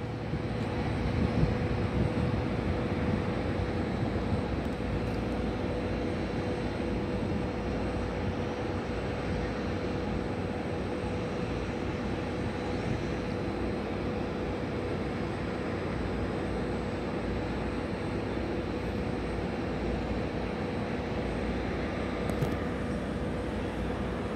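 Boeing 737-800's CFM56 jet engines at low taxi power, heard from a distance as a steady rumble with a faint steady hum.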